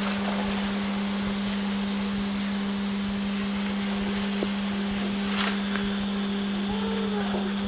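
Gas brazing torch flame hissing steadily while a joint on a thin metal EGR cooler is brazed, over a constant low hum. There is one brief click about five seconds in.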